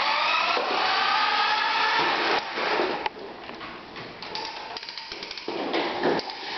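Plastic push-along toy rolling and rattling on a wooden floor as a toddler pushes it. A loud whirring with a wavering pitch fills the first three seconds, then gives way to quieter clicks and clatter.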